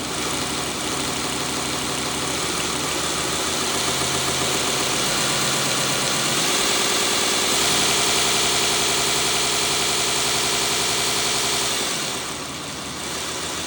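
Grizzly 2x42 knifemaker belt grinder running with no load on its variable-speed motor: a steady hum and belt whir that grows louder as the speed is turned up, then drops off about twelve seconds in as the speed comes down.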